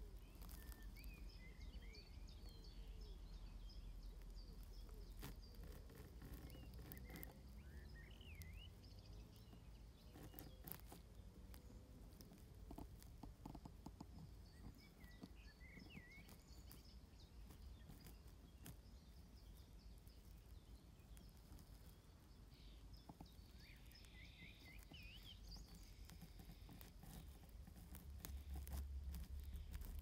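Quiet outdoor ambience: distant birds chirping in a few short bursts over a low wind rumble on the microphone. The rumble swells near the end, and faint scattered clicks run throughout.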